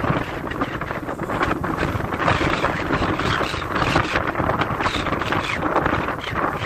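Strong wind blowing against the microphone: a loud, uneven rush of noise that rises and falls in gusts.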